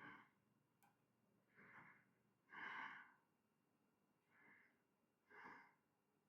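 Faint breathing close to the microphone: about five soft breaths, one every second or so.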